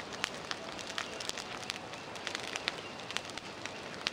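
Dry palm fronds burning in an open fire, crackling with irregular sharp pops over a steady rushing hiss.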